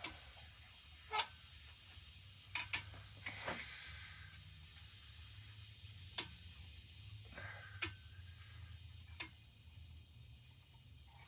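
Light metallic clicks and taps, about eight scattered irregularly, as a machinist's straight edge and feeler gauge are set on and moved across an engine block's deck to check it for flatness; a few clicks ring briefly. A low steady hum runs underneath.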